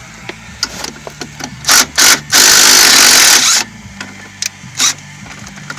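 Impact wrench hammering in two short bursts and then a longer burst of about a second, spinning out a heat-loosened, previously seized strut bolt.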